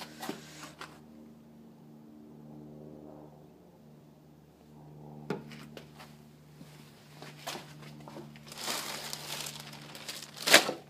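Footsteps on a concrete floor, then plastic packaging rustling and crinkling as it is handled, ending in a sharp knock near the end. A steady low hum runs underneath.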